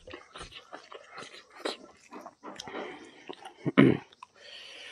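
Close-miked eating: a man chewing and smacking a mouthful of buffalo innards curry and rice in short irregular wet sounds, with one loud mouth sound about four seconds in, followed by a steady hiss for about a second near the end.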